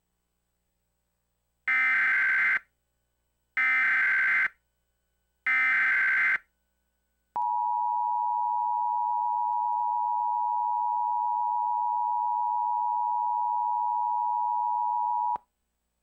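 Emergency Alert System header: three short bursts of screeching digital SAME data, each about a second long and about two seconds apart, followed by the steady two-tone EAS attention signal held for about eight seconds before it cuts off.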